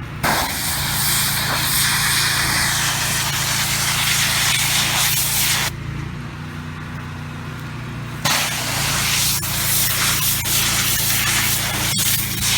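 Pressure washer wand spraying water in two long bursts, with a pause of about two and a half seconds between them, over the steady hum of the pressure washer's running engine.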